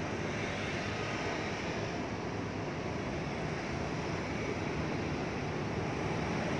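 Steady rushing background noise with no clear tone or rhythm.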